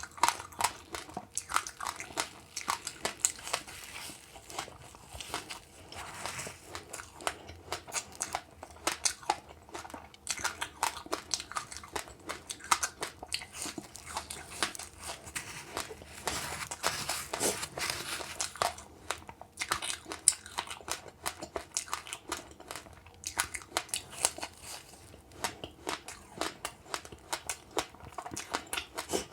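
Close-up crunching and chewing of passionfruit pulp with its seeds and sesame seeds: a steady run of crisp, irregular crunches, busiest about two-thirds of the way through.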